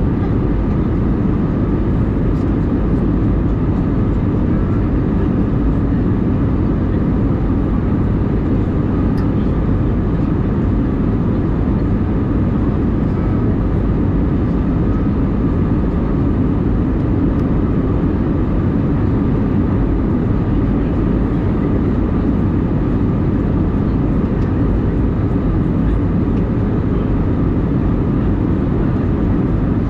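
Steady cabin drone of an Airbus A320 in flight, heard from inside the passenger cabin: engine and airflow noise, deep and unchanging.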